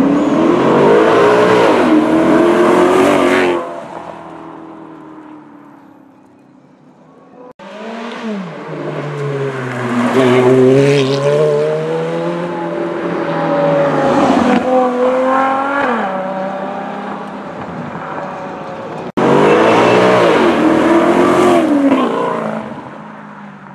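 Ferrari and Maserati sports-car engines revving hard, pitch rising and falling repeatedly, while the cars are spun and drifted on asphalt, with tyre squeal. It comes in three separate runs, the loudest at the start and near the end.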